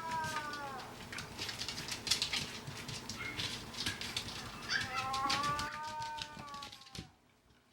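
A small dog howling. One long howl trails off about a second in, and a second long howl rises and falls from about five seconds in. Short clicking sounds come between the two howls.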